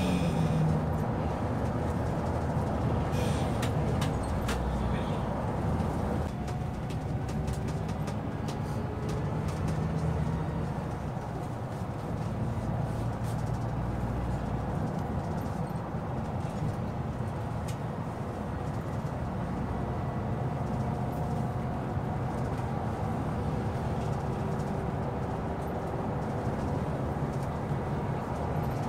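Scania K360IB coach's rear-mounted diesel engine running under way, heard from inside the driver's cab together with tyre and road noise and a few light cabin rattles. The engine note drifts slowly up and down with the coach's speed.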